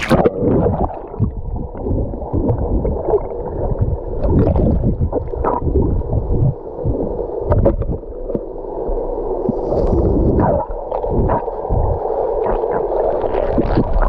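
Muffled underwater sound from a camera held below the sea surface: a low, steady wash of water with bubbling from the diver and scattered small clicks. Almost everything above the low range is cut off.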